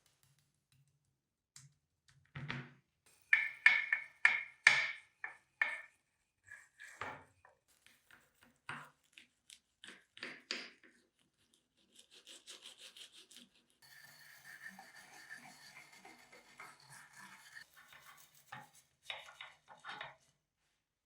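Hand rubbing and scraping strokes on a part, worked back and forth: a series of separate strokes, then a longer run of steady rubbing about two-thirds of the way through, then a few more strokes near the end.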